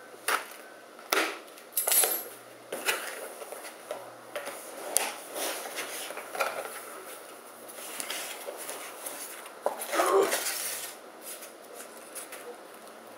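Cardboard product box and its white packaging insert being handled and opened: irregular clicks, knocks and scraping rustles, with a longer scrape about ten seconds in.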